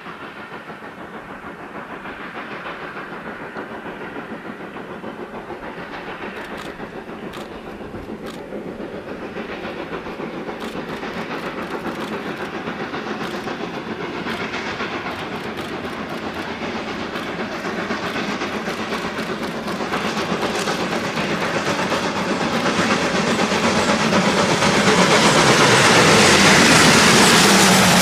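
German-built Class 52 2-10-0 steam locomotive working a passenger train under steam, its exhaust beats growing steadily louder as it approaches and loudest near the end as it passes close by. Sharp clicks come through in the middle stretch.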